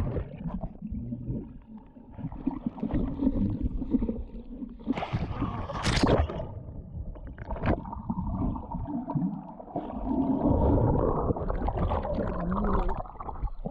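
Muffled underwater sound of a swimmer's body churning the water, with bubbling and gurgling as air bubbles stream past the submerged camera. A brief, sharper splash-like rush comes about five to six seconds in.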